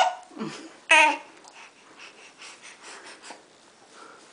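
Seven-month-old baby's vocal noises: one short, loud, high-pitched screech about a second in, followed by softer breathy, wheezy babbling sounds.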